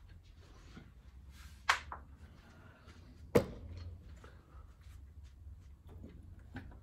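Handling knocks over a low steady hum: a sharp knock about a second and a half in, then a louder one about three and a half seconds in as a cordless drill is set down on a wooden workbench.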